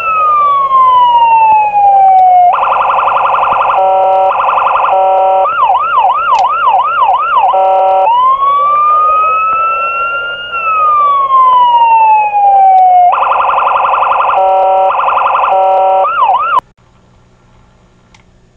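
US-style police siren played through a model car's RC siren speaker module: a slow wail rising and falling, bursts of a buzzing horn tone, then a fast yelp. The cycle runs twice and cuts off suddenly near the end.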